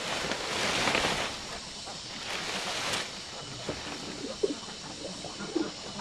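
Bundle of dry palm leaves rustling and crackling as it is handled and set down on a pile, in two bursts over the first three seconds. Then a dove coos twice in the background.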